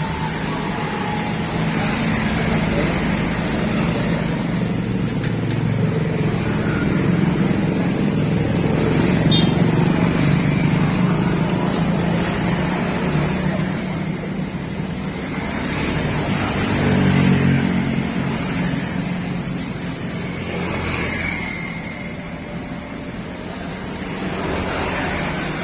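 Motor vehicle engines running amid traffic noise, swelling and fading as vehicles pass.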